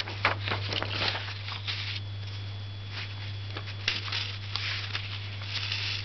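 A sheet of paper being handled, with soft rustles and light taps in the first two seconds, then only occasional faint ticks. A steady low electrical hum runs underneath.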